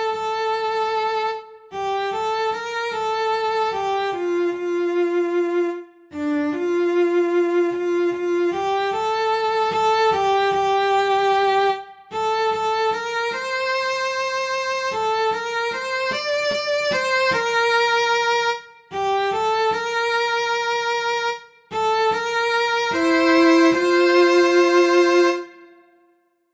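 A solo cello plays the slow melody of an art song, one sustained note at a time, in phrases with brief breaks between them. The last note fades out about a second before the end.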